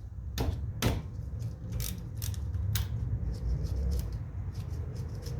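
Sharp metallic clicks and clinks of hand tools working on the brake caliper bridge bolts, irregularly spaced and strongest in the first three seconds, over a steady low hum.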